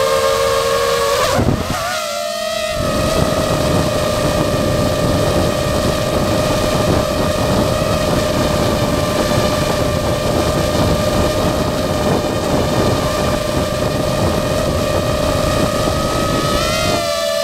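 DJI FPV drone's motors and propellers whining steadily at a constant pitch, with a brief throttle change and dip in level about two seconds in, and a slight drop in pitch near the end.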